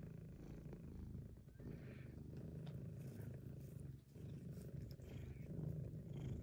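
Domestic cat purring: a faint, steady low rumble with a brief pause about four seconds in.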